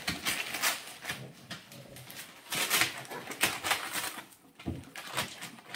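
Paper advertising flyers crinkling and ripping as a Boston terrier tears them apart with its teeth, in irregular rips and rustles with a short lull about four seconds in.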